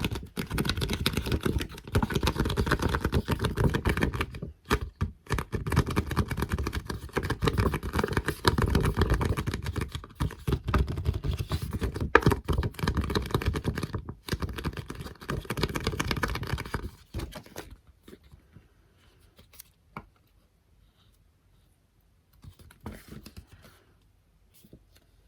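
Rapid, close-miked ASMR tapping and light scratching with the fingertips and nails on small objects. It stops about two-thirds of the way through, leaving a few single soft taps.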